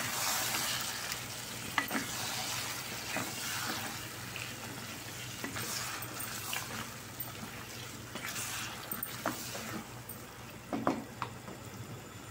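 Chicken in yogurt gravy sizzling in a pot while a wooden spatula stirs it, with a steady hiss and scattered scrapes and knocks of the spatula against the pot.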